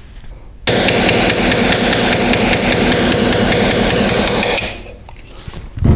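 Hammer tapping a brass punch against the dovetailed rear sight of a Smith & Wesson M&P Shield slide, drifting the sight out: a rapid, even run of metal-on-metal taps that starts under a second in and stops after about four seconds.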